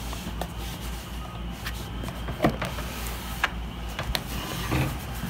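Scattered sharp clicks and light knocks of hard plastic chair parts being handled and pressed into place at a gaming chair's backrest hinge covers, over a low steady hum.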